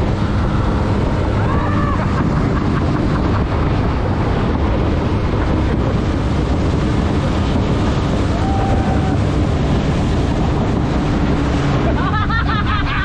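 Small boat running under way, its motor a steady drone under heavy wind noise on the microphone, with a few brief voice sounds near the end.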